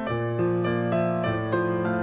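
Soft background piano music, a melody of steady notes changing every few tenths of a second.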